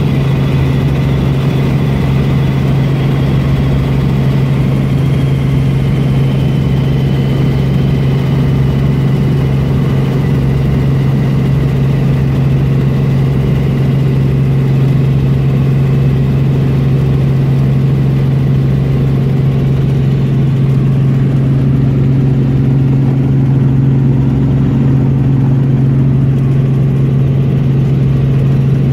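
Helicopter in flight, heard from inside the cabin: a loud, steady drone of rotor and engine with a strong low hum. A faint high whine drifts slightly lower over the first several seconds.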